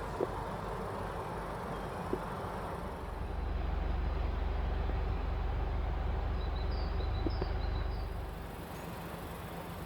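Low rumble of a vehicle, swelling louder for about five seconds in the middle, then easing back, with a few faint clicks.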